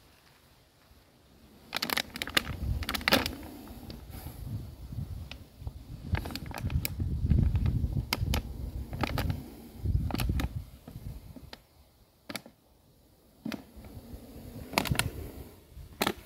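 Irregular clicks and crackles of a clear plastic jar being handled and set down in grass, starting a little under two seconds in, over low rumbling handling noise.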